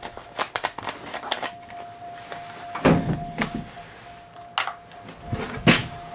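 A series of clunks and knocks from things being handled and moved around the car, about five of them sharper than the rest. A faint steady high tone runs under them from about a second and a half in.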